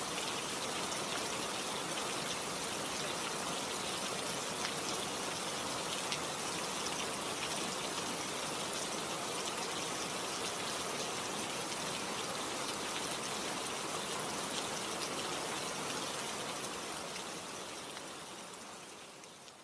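Steady rain falling, a dense hiss with faint drop ticks, fading out near the end.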